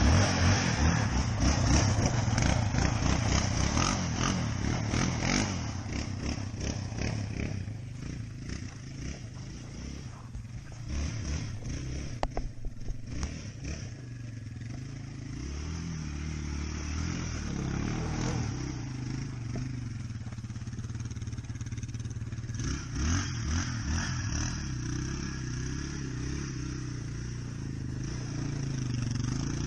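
Sport ATV (quad) engine running and revving as it is ridden. It is loudest in the first few seconds, then quieter as it moves farther off, with the revs rising again a couple of times in the second half.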